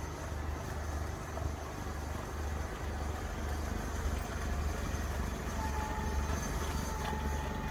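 Kioti compact tractor's diesel engine running steadily with a low rumble. A faint high whine joins about two thirds of the way in.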